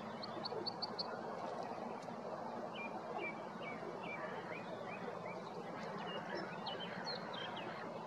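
Small songbirds singing: a quick run of about six high ticking notes near the start, then a string of short down-slurred whistled notes and a few more later on, over a steady background rumble.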